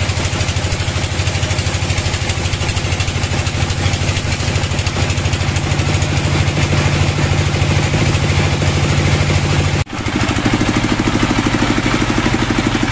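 Engine-driven band sawmill running with a loud, steady drone and rapid pulsing while a board is fed past the blade. About ten seconds in the sound cuts out for an instant and comes back with a changed tone.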